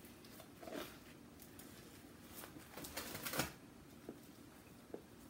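Faint scattered crackles and clicks of handling noise, with a short cluster about three seconds in and a lone click near the end.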